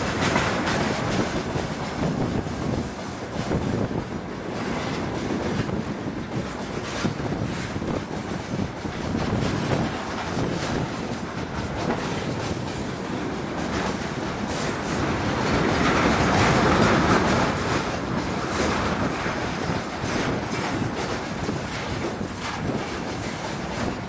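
Freight train of railway tank cars rolling past at close range, its wheels clattering over the rail joints above a steady rumble. The noise swells for a few seconds about two-thirds of the way through.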